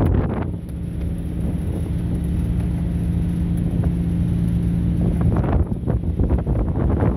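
A boat engine runs with a steady low drone while wind buffets the microphone in gusts, heavier about five seconds in.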